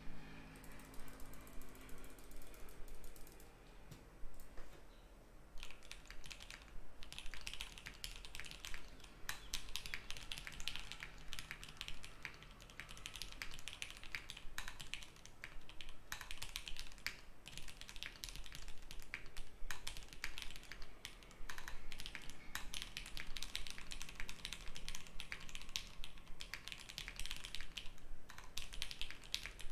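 Typing on a custom KBD67 MKII mechanical keyboard with an acrylic plate and Jwick Black linear switches lubed with Krytox 205g0, under cherry-profile keycaps. The key strokes come as a rapid, continuous stream, sparser and lighter for the first five seconds or so.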